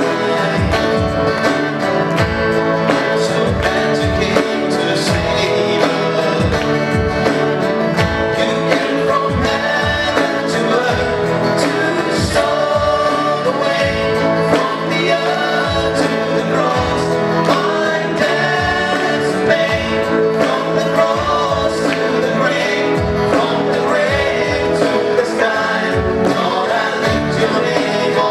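A Christian gospel-style song: a singer over keyboard, guitar and electronic rhythm pads keeping a steady beat.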